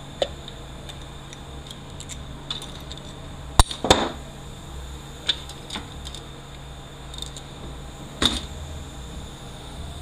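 Metal parts and hand tools clinking against a 4R70W automatic transmission's case while the overdrive servo's broken snap ring is worked out of its bore: a scattering of sharp clicks and clinks, the loudest two in quick succession about four seconds in, over a steady low hum.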